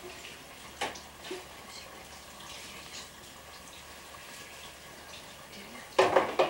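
Kitchen clatter: a couple of sharp knocks of dishes and utensils handled at the counter about a second in, and a louder quick cluster of clattering near the end, over a faint steady hiss.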